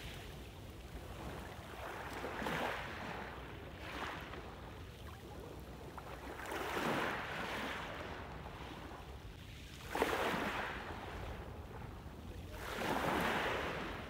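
Small sea waves breaking and washing up over a pebble beach. About five surges come in every two to three seconds, the one about ten seconds in breaking most sharply.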